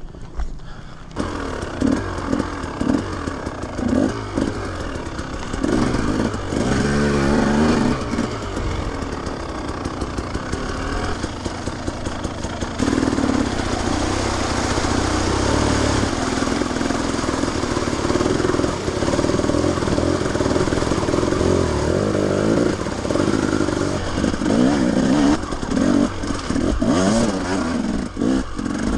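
Enduro motorcycle engine ridden hard off-road, revs rising and falling with throttle and gear changes. From about halfway it gets louder as the bike splashes through a flooded track.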